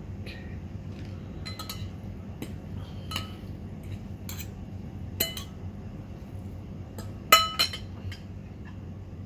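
Metal fork and spoon clinking against a ceramic bowl while tossing noodles: scattered sharp clinks with a short ring, the loudest pair about seven seconds in.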